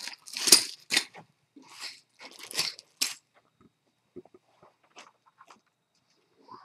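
Clear plastic bags of 3D-printed parts crinkling as they are handled, in a handful of loud bursts over the first three seconds, followed by a few light clicks.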